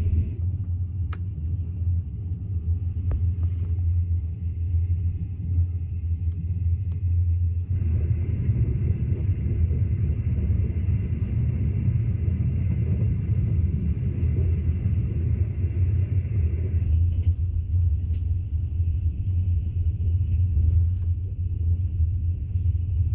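Low, steady rumble of a moving train, its texture shifting a couple of times.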